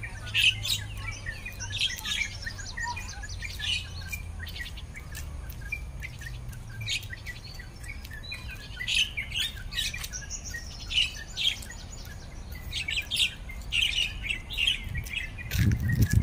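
Several birds chirping and calling, many short high chirps following one another throughout. A steady low hum runs underneath, and a brief low rumble comes near the end.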